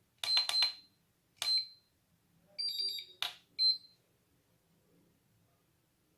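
Hobby LiPo charger (a clone iMAX B6) beeping as its buttons are pressed to start a charge. First three quick beeps, then a single beep, then a short two-tone chirp with a click, then one last beep, all within about four seconds.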